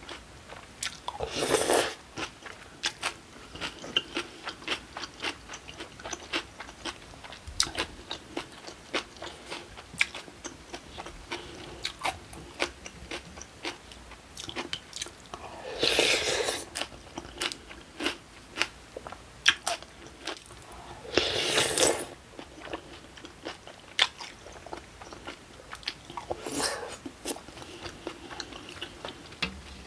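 Close-miked eating of cold acorn jelly rice with kimchi and vegetables: a steady run of crunching and chewing clicks, with four louder noisy sounds about a second long spread through.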